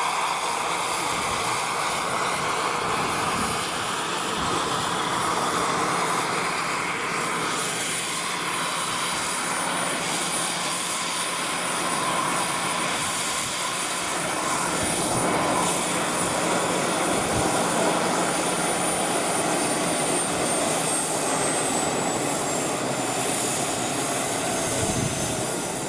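Radio-controlled scale model helicopter running in flight, a steady mechanical drone with a high whine that falls in pitch over the last few seconds.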